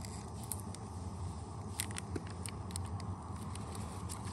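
Instant coffee stick packet being torn and crinkled open by hand: a few sharp crackles over a steady low rumble.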